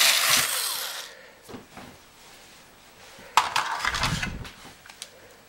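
Cordless power screwdriver running as it drives a screw into a small transformer, stopping about a second in. A few faint clicks follow, then a louder clattering knock and rustle of handling plastic and metal parts about three and a half seconds in.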